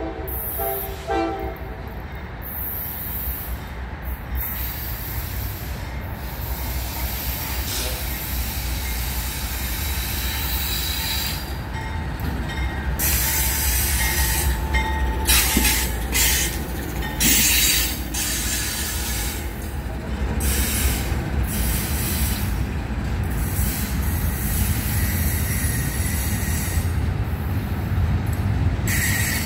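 Norfolk Southern intermodal freight train passing close by. The locomotive's horn blast fades out about a second in, and then the diesel locomotives and double-stacked container cars rumble steadily past on the rails. Several short bursts of high-pitched noise come from the wheels between about 12 and 18 seconds in.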